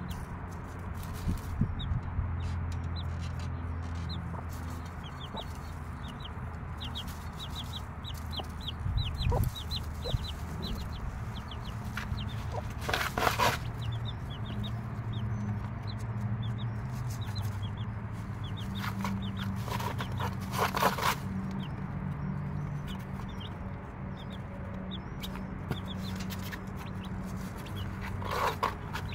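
Six-day-old chicks peeping in quick runs of short, high, falling notes, over a mother hen's low, steady clucking. A few short rustling sounds break in now and then.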